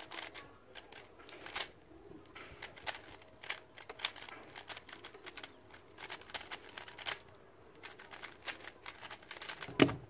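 GAN Mini M Pro magnetic 3x3 speedcube being turned fast in a solve: a rapid, irregular rattle of clicking layer turns. It ends in a loud thump near the end as the solved cube is set down and the hands come down on the Speed Stacks timer to stop it.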